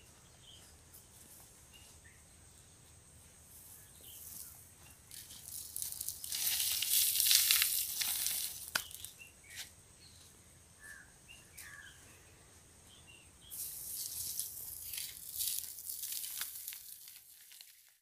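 Dry soil poured from the hands onto the smouldering ashes of an open wood fire to smother it: a rustling, pattering hiss twice, a few seconds each, with faint bird chirps in the quiet between.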